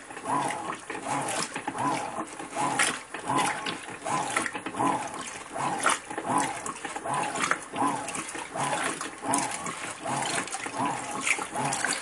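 Electrolux Ecologic 12 kg (LEC12) top-load washing machine agitating a full load of bedding and towels. The agitator swishes back and forth about twice a second with water sloshing, each stroke rising and falling in a steady rhythm.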